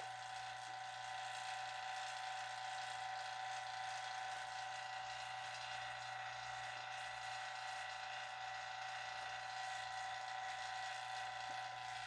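Robinair 1/5 horsepower, 1.5 CFM electric vacuum pump running with a steady hum near the end of an hour-long evacuation of a car's R-134a air conditioning system.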